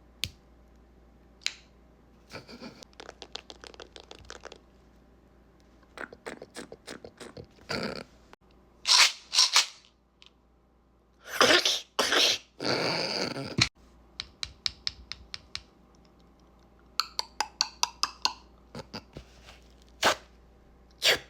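A person making a series of mouth and breath sound effects: single sharp clicks, quick runs of tongue clicks at about ten a second, and several longer hissing, breathy bursts, with short pauses between them.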